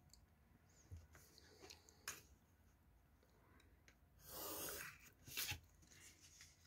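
A pencil ruling a line along a ruler on an exercise-book page: one scratchy stroke of under a second just after the middle, with faint taps and clicks of the ruler and pencil being put down and handled around it.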